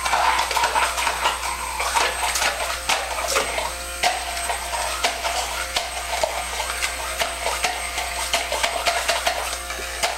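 Braun hand blender running in a cup with a steady motor buzz and frequent clattering clicks, with music playing along.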